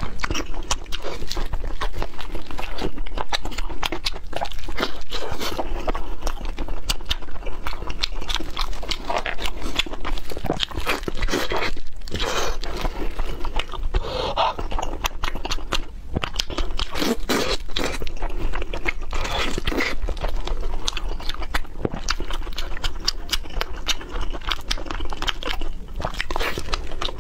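Close-miked eating of seasoned fried pork belly: continuous crunching, biting and wet chewing with dense, irregular crackles, picked up by a lapel microphone near the mouth.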